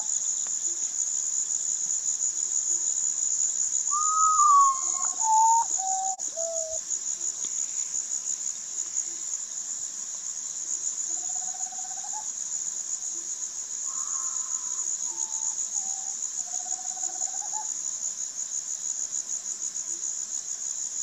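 Common potoo (Nyctibius griseus) singing its mournful song twice: a series of whistled notes that step down in pitch, note by note. A steady high-pitched insect trill runs underneath.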